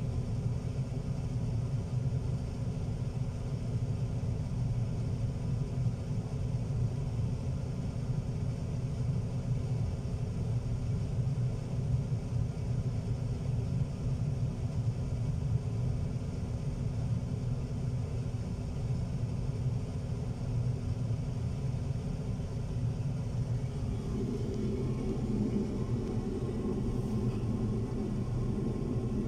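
Steady low engine rumble of a heavy vehicle, heard from inside its cab. Near the end a second, higher drone joins in.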